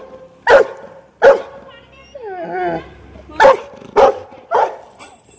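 A dog barking in short, sharp barks: two about a second apart, then four in quick succession near the end. A softer, wavering whine comes between them.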